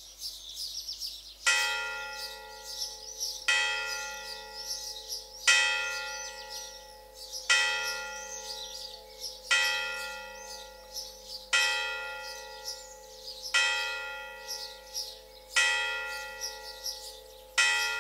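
A single church bell tolling slowly: nine strokes about two seconds apart, each ringing out and fading before the next. Birds chirp throughout.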